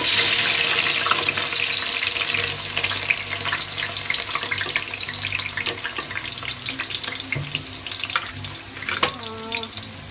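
Sliced onions dropped into hot oil in an aluminium pot, frying with a loud sizzle and crackle that starts all at once and slowly eases off.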